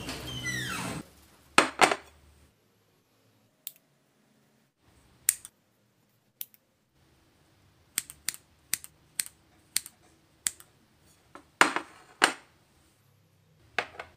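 Kitchen scissors snipping through slices of white bread, a series of sharp cuts, with a quick run of about two snips a second in the middle and two louder ones near the end. A brief scraping sound opens it.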